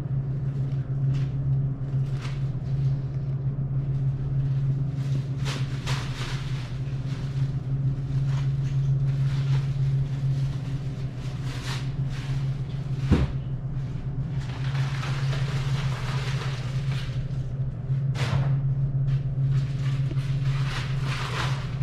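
Car running, heard from inside the cabin: a steady low engine and road drone, with a sharp click about thirteen seconds in.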